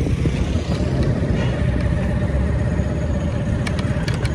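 Motorcycle engine running while riding, under a heavy rumble of wind and road noise on the microphone, with a faint steady whine through it. A few sharp clicks come near the end.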